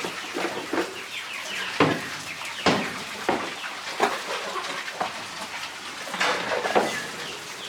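Farmyard animal and bird calls: a string of short, sharp calls about once a second, with a cluster of chirping sweeps near the end.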